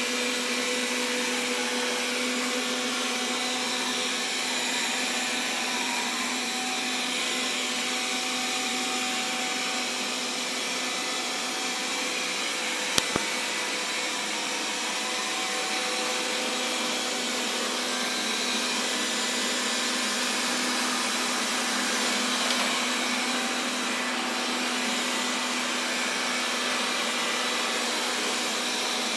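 Xiaomi Mi Robot Vacuum (Mijia) running steadily, a constant whir from its motor with a humming note that shifts slightly about halfway through. A brief double click sounds a little before the midpoint.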